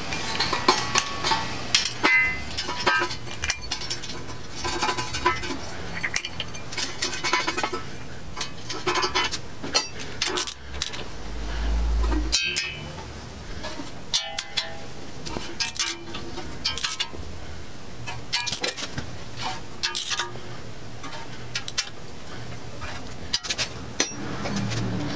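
Metal hardware clinking and clicking as nuts are placed on the windage-tray studs of a 5.3L LS V8 block and run down with a socket on a long extension, in many quick irregular clinks.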